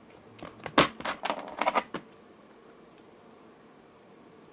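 Light metallic clicks and clinks of jewelry pliers handling a small jump ring and findings, a quick run of them in the first two seconds.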